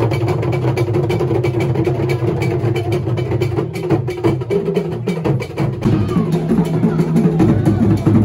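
Percussion music, drums with a quick knocking beat, playing loudly over a crowd; voices rise over it from about six seconds in.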